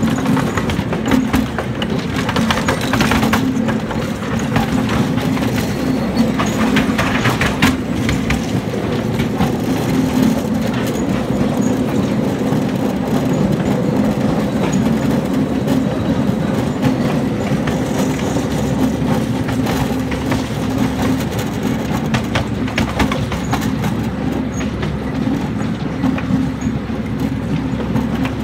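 Quarter-scale riding train rolling along its track: a steady motor hum under the rumble of the cars, with the wheels clicking over rail joints now and then.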